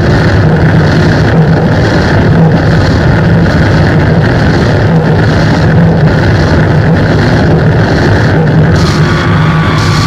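Loud, dense distorted noise drone from a board of guitar effects pedals, with a steady low hum under it and a pulse a little faster than once a second. Near the end, steady pitched tones come in over the wash.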